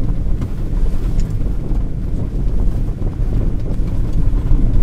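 Ford Ranger FX4 pickup with a 2.0-litre turbo diesel driving over a bumpy grass off-road track: a steady low rumble of engine, tyres and suspension, with a few faint knocks.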